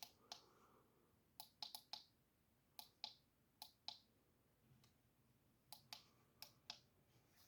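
Small plastic push buttons on a sunrise alarm clock clicking as they are pressed and released, about a dozen sharp clicks, many in quick pairs, spread through a quiet room.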